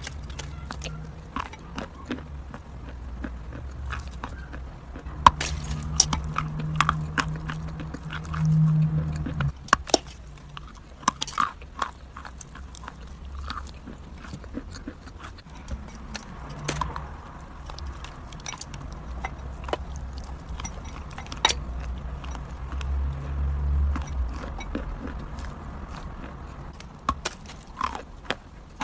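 Crunchy food being bitten and chewed close to the microphone: irregular sharp cracks and crunches, with a low rumble that swells now and then.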